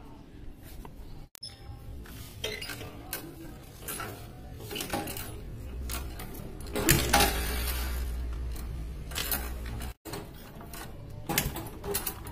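Scattered metallic clicks and clinks on a small underbone motorcycle, then from about halfway a sharp knock and a low rumble as its kick-starter is worked to turn the engine over.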